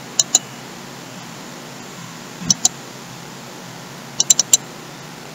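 Computer mouse clicking in quick pairs: a double-click near the start, another about two and a half seconds in, and four rapid clicks just past four seconds, over a steady faint microphone hiss.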